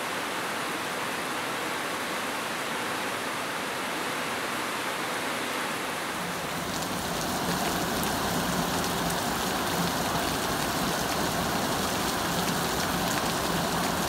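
Heavy rain falling steadily, an even hiss. About seven seconds in it changes to a slightly louder rain with more low rumble.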